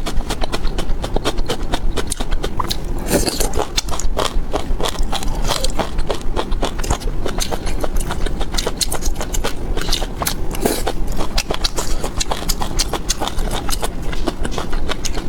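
Close-miked eating: crunching and chewing food, a dense run of quick crisp clicks and smacks.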